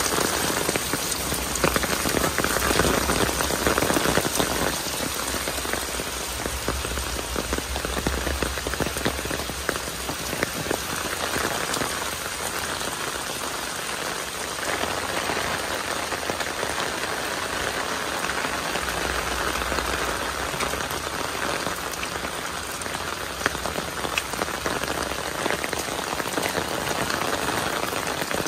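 Heavy rain falling steadily: a dense hiss of countless drops.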